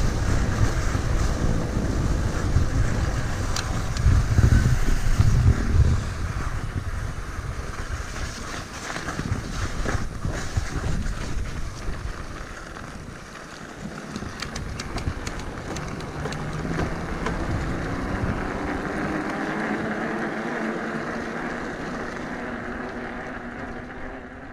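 Wind buffeting the microphone of a camera on a moving fat-tire e-bike, with the rushing noise of riding along; the buffeting is heaviest for the first six seconds, then settles to a steadier, quieter rush and fades out at the end.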